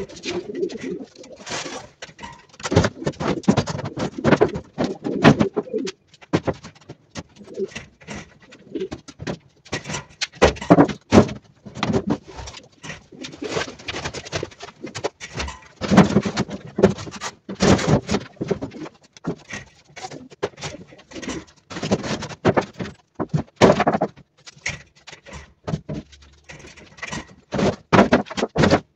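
Domestic pigeons cooing, over repeated knocks and clatter of square metal tins being carried and stacked on wooden shelves as loft nest boxes.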